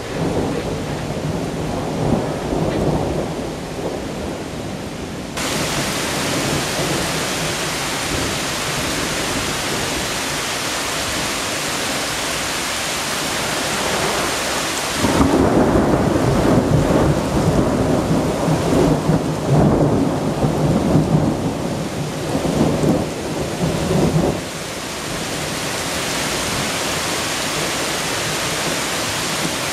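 Thunderstorm: rolling thunder at first, then heavy rain starts hissing suddenly about five seconds in. About halfway through a long, loud roll of thunder rumbles for nearly ten seconds over the rain, which then carries on alone.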